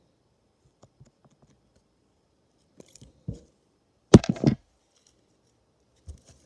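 Slime bubble popping: a short burst of sharp pops and crackles about four seconds in, after a few faint clicks.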